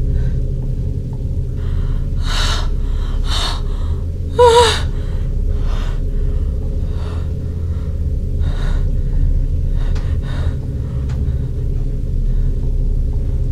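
A woman gasping and sobbing in short panicked breaths, with a brief pitched cry about four and a half seconds in, the loudest moment. Under it runs a steady low rumbling drone.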